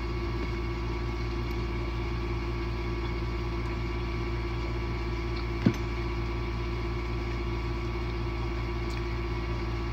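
Steady machine hum with a few held tones over a low drone, from an indoor appliance such as a fan or air conditioner; one sharp click about halfway through.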